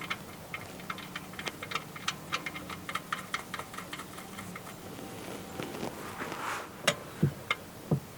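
Ratchet wrench with a 17 mm socket clicking in quick, uneven strokes as the oil drain plug is run back into the pan, followed by a few knocks of tools near the end.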